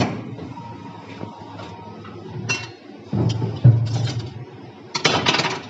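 Plastic injection molding machine running a test shot: a sharp click, then a low hum in short stretches with several brief hisses, the loudest hiss near the end.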